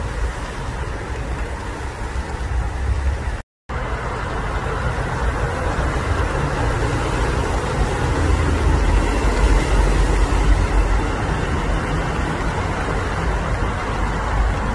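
Steady low rumble and hiss of road traffic, broken by a brief dropout to silence about three and a half seconds in.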